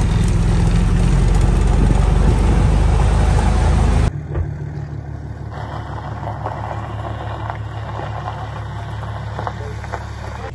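Small utility vehicle engine running close by while driving on gravel. After about four seconds it cuts abruptly to a quieter, steady hum of a pickup truck engine pulling a horse trailer.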